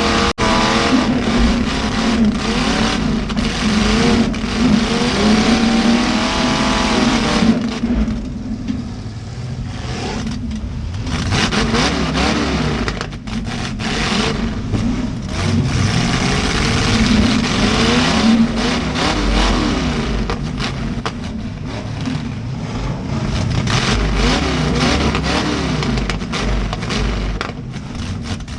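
Demolition derby cars' V8 engines revving up and down against each other, with repeated sharp bangs of car bodies colliding.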